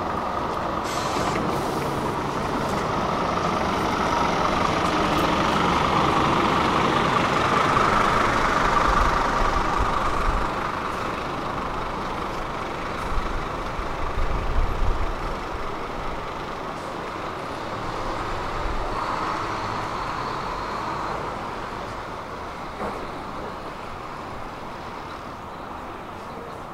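A heavy motor vehicle running by, its noise swelling over several seconds and then fading, with a few low rumbles about halfway through.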